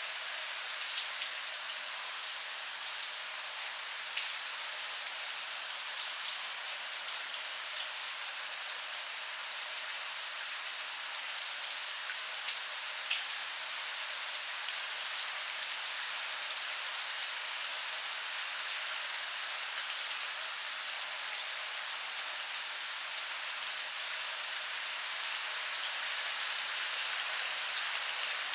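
Steady rainfall, a continuous high hiss with scattered sharp drips and drop ticks landing on surfaces close by.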